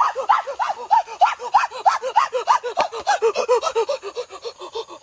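Chickens clucking in a rapid run of short, repeated calls, about four a second.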